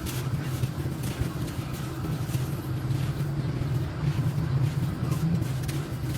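Crumbly sand-cement being crushed, giving a run of short crunches and crackles over a steady low hum.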